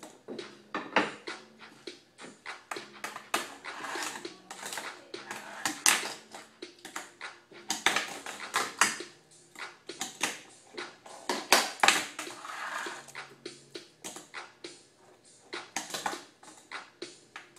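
Fingerboard clacking on wooden ramps and a stone tile: a string of irregular sharp clicks and knocks as the board is popped, flipped and landed.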